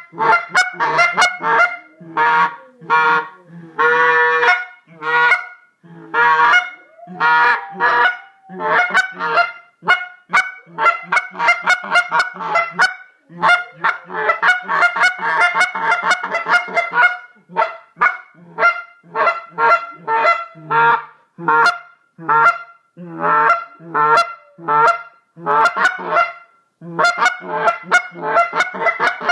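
Goose call blown in quick runs of short honks, one note after another with a few brief pauses, and some longer, lower notes a few seconds in.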